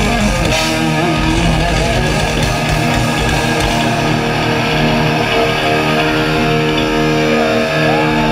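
Live thrash metal band playing loud, with distorted electric guitars, bass and drums, heard from the crowd. From about halfway the chords are held and ring on, with a few bending guitar squeals near the end.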